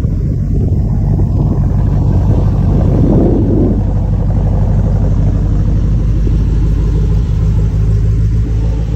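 Porsche 928 S V8 engine idling steadily through its exhaust, a low, even rumble. It is briefly louder and fuller about three seconds in.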